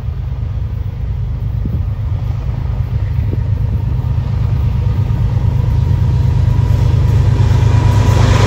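Diesel freight locomotive leading a double-stack intermodal train on approach, a low engine rumble that grows steadily louder as it nears.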